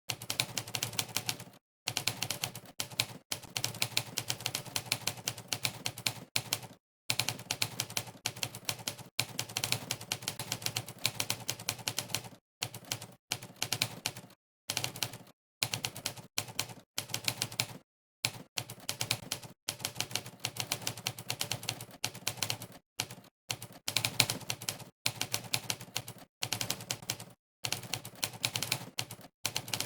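Monkeytype's typewriter keystroke sound effect: a rapid run of typewriter clacks, one per keypress, in bursts broken by many short gaps of complete silence.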